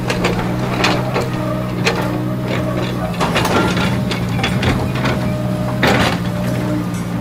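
Kobelco SK200 hydraulic excavator running steadily under load, with repeated clanks and knocks from the bucket and arm linkage as it lowers the bucket and reaches out to dig soil. A louder knock comes about six seconds in.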